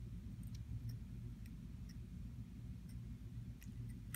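Gold-tone pocket watch necklace giving faint, light clicks at uneven intervals as it is turned over in the hands, over a steady low hum.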